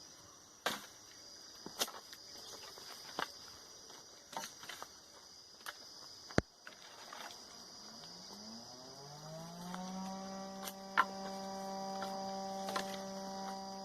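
Insects chirring steadily with scattered sharp knocks and clicks. About eight seconds in, a motor hum starts low, rises in pitch and settles into a steady drone.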